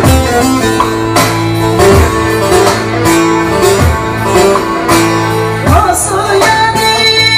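Music: a folk tune led by a plucked string instrument over sustained tones, with a steady beat of low drum hits.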